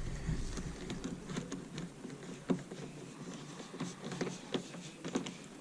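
Scattered light clicks and taps at an irregular pace, with a few sharper knocks, from hand-tool work on a truck.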